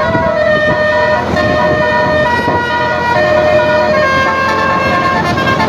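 Basuri multi-tone bus horn ('telolet') playing a tune of held notes that step from one pitch to another.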